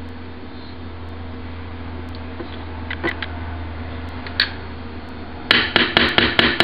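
Steady low hum with a few faint taps and clicks as hands handle hot dog buns, a plate and a plastic jar lid. Near the end a quick run of loud clicks and knocks begins.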